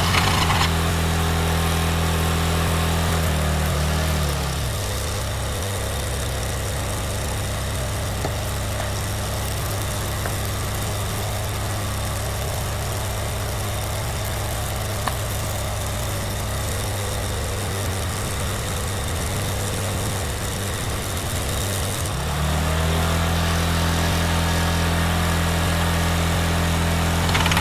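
Engine-driven welder running steadily, then slowing to a quieter idle about four seconds in and speeding back up near the end.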